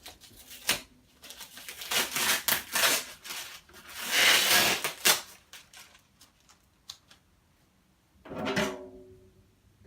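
Packaging being handled, with a run of scraping, rustling and sharp clicks, then a single short ringing note about eight seconds in that fades out within a second.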